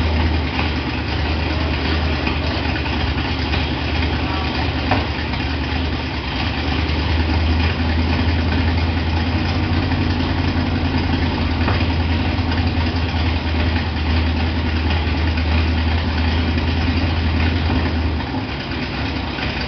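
Dodge V8 engine idling with a steady, deep rumble. The low rumble drops off about eighteen seconds in.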